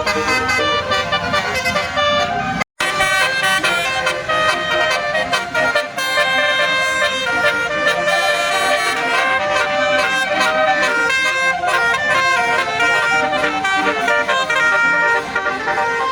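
Basuri 'telolet' multi-tone bus horn playing a quick melody of changing notes, breaking off for an instant about three seconds in.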